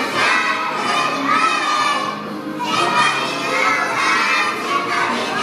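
A group of young children shouting together in loud phrases a second or two long.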